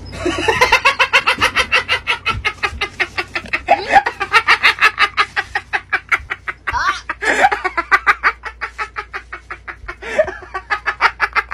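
Hard, cackling laughter: a long run of rapid 'ha-ha-ha' pulses at about seven a second, with a brief squealing break partway through.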